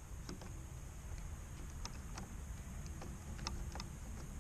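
A few faint, scattered light clicks over a low, steady background rumble.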